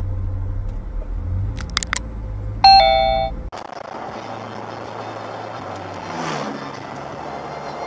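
Dash-cam recording of a car driving, with a low engine and road rumble. About two and a half seconds in, a short, loud two-note tone sounds for about half a second and then fades. After a cut, steadier and quieter road and tyre noise follows, with a brief swell about six seconds in as an oncoming car passes.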